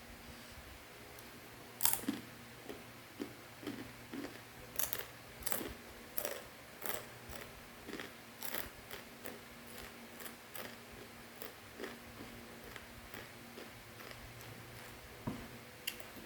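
Crunchy dry macaroni snack being bitten and chewed: a run of sharp, irregular crunches, about one or two a second, beginning about two seconds in. There is a faint steady hum underneath.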